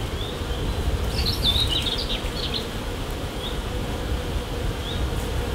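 Honeybees humming steadily from an open hive as a frame of bees is lifted out.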